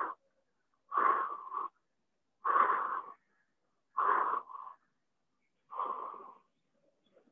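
A person breathing hard and audibly while holding a full wheel backbend: four strained breaths about a second and a half apart, each a short rush of air.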